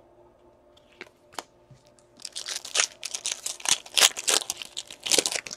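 A 2016-17 Upper Deck Series 2 hockey card pack's wrapper being torn open and crinkled. It makes a rapid, crackling rustle for about three seconds, starting about two seconds in, after a couple of faint clicks.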